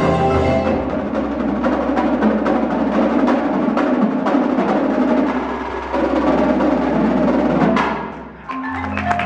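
Indoor percussion ensemble playing live: rapid drum and wood-block strikes with marimbas over a sustained low bass. The music drops away briefly near the end, then held chords come in.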